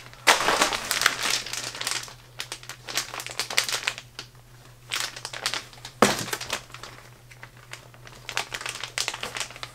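Plastic packs of soft-plastic fishing baits crinkling as they are handled and shuffled, loudest in the first couple of seconds, with a sharp crackle about six seconds in.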